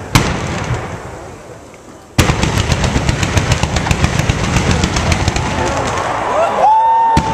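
Fireworks: one sharp bang that fades away, then about two seconds in a sudden dense barrage of rapid-fire crackling reports, like machine-gun fire. Rising and falling whistles sound over the barrage near the end.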